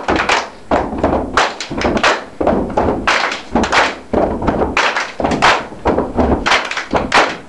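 A group doing a body-slapping dance: hands slap chests, arms and thighs and clap in unison, with thudding stamps, several sharp slaps a second in an uneven rhythm.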